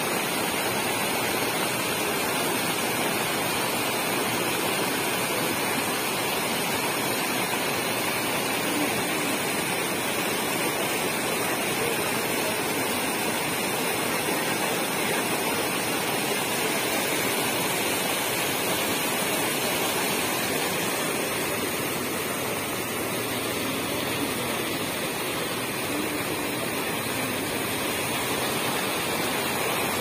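Rain-swollen river in heavy flow, its muddy water running fast and churning white along a concrete bank: a steady, even rush of water.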